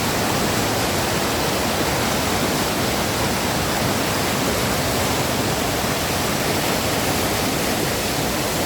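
Waterfall: steady rush of falling water, an even hiss with no change from start to end.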